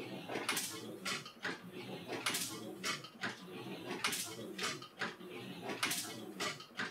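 Printing press running: sharp metallic clacks in a regular cycle, two or three clacks about every two seconds, over a steady mechanical clatter.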